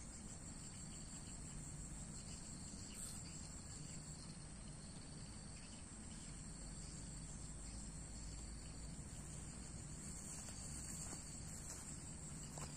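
Steady, high-pitched drone of insects chirring in the bankside grass, over a low rumble.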